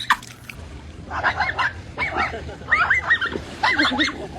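An animal calling in several short, wavering, high-pitched cries, beginning about a second in.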